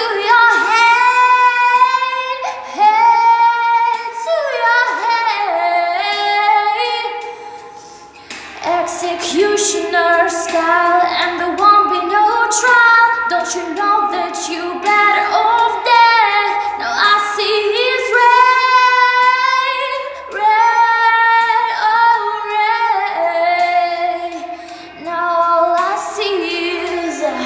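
A young woman singing solo, with long held notes and sliding runs between them; she breaks briefly about eight seconds in, then carries on.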